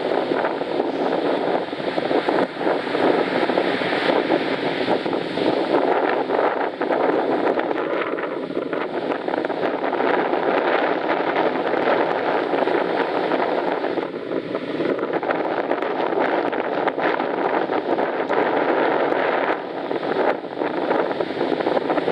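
Strong wind buffeting the microphone, over a steady rush of surf on the shore.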